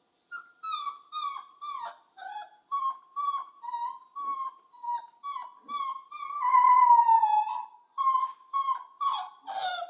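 Central Asian Shepherd (Alabai) puppy howling: a run of short, high, pitched calls at about two a second, each dropping slightly in pitch, with one longer howl about six and a half seconds in that slides down over more than a second.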